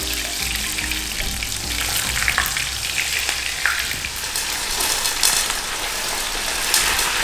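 Frozen panko-breaded butterfly prawns deep-frying in very hot oil in a saucepan: a steady sizzling hiss full of small crackling pops.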